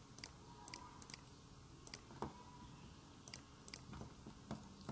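Faint, irregular clicking of a computer mouse and keyboard, about a dozen sharp clicks over quiet room tone.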